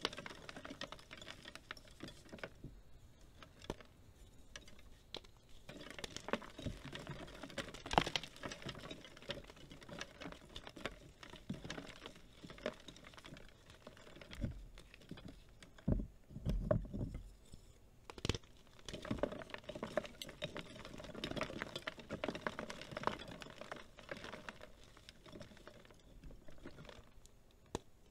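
Dry reformed gym chalk being crushed and crumbled by hand: irregular crunching and crackling as hard pieces break apart, with a heavier thump a little past halfway.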